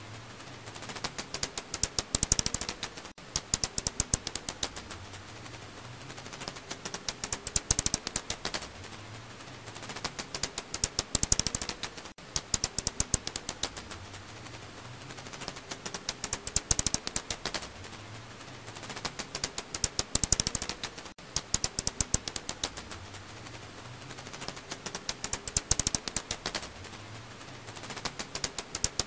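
Alashanian pipistrelle (검은집박쥐, Hypsugo alaschanicus) calls made audible, heard as a rapid, dense clicking that swells and fades every few seconds. There is a brief break about every nine seconds.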